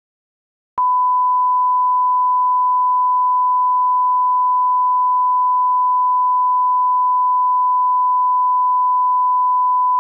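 Steady, loud, single-pitch line-up tone of the kind that goes with broadcast colour bars, starting about a second in and holding unchanged.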